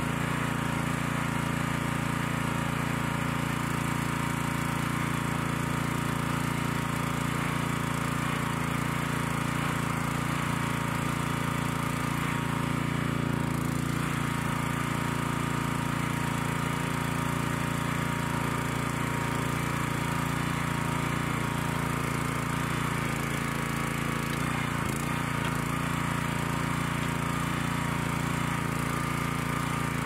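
Small gas engine of a Central Machinery towable backhoe running steadily at a constant speed.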